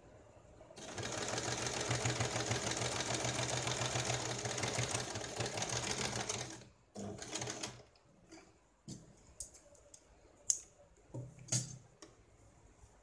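Domestic electric sewing machine stitching in a fast, even run of about six seconds that starts about a second in, then a short second burst of stitches. After that come scattered clicks and fabric rustling as the cloth is handled under the needle.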